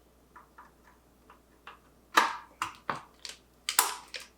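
Sharp plastic clicks and snaps as DDR4 RAM sticks are pushed into a motherboard's memory slots and the slot latches snap shut. A few faint ticks come first, then about six loud clicks from about two seconds in.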